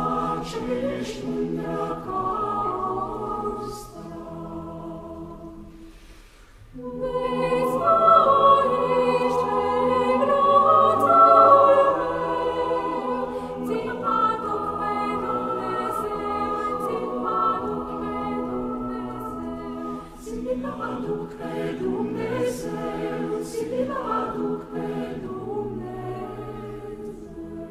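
A chamber choir singing a Romanian Christmas carol a cappella in sustained chords. It drops to a soft passage about four seconds in, swells back loud about seven seconds in, and grows gradually softer toward the end.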